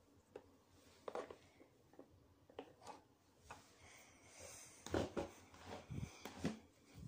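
Faint handling noise from a handheld phone being moved about, with things shifted on a table: scattered taps, knocks and rustles, busiest about five seconds in.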